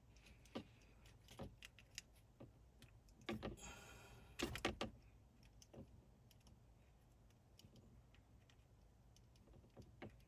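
Faint, scattered clicks and small knocks of plastic wiring connectors being worked loose from a CAN bus STAR connector block. There is a short rustle about a third of the way in and a quick cluster of louder clicks near the middle.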